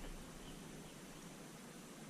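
Faint steady hiss with no distinct sounds in it.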